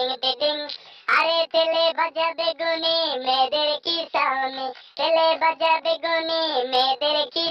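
A high, child-like voice singing a quick, repetitive novelty chant in short, rapid syllables, with brief breaks about a second in and again a little before the middle.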